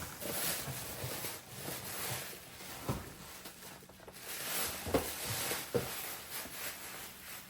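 Grocery items being handled: a faint rustling with a few light knocks as things are set down, about three seconds in, about five seconds in and just after.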